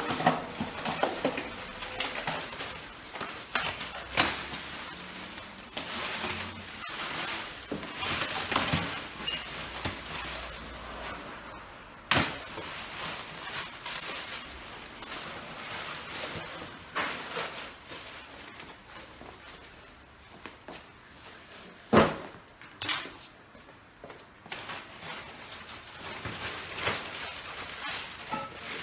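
Irregular clinks, clicks and knocks of milking-machine parts being handled and fitted together, with sharper knocks about 4, 12 and 22 seconds in.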